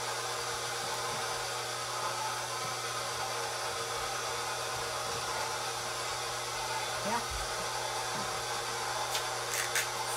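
KitchenAid stand mixer running steadily on a low speed setting, its motor giving an even hum. A few light clicks come near the end.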